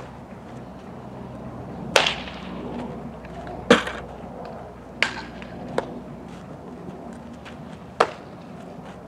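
Sharp pops of a softball being hit and smacking into leather fielding gloves, about five in all a second or two apart, over steady outdoor background noise.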